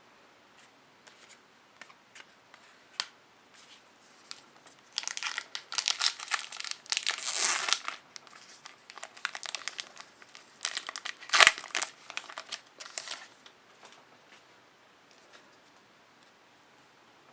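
Trading-card pack wrapper being crinkled and torn open. The crackling comes in two dense spells, with one sharp, louder crackle in the second.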